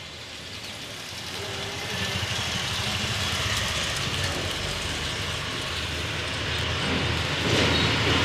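A motor vehicle's engine and road noise, growing steadily louder as it approaches.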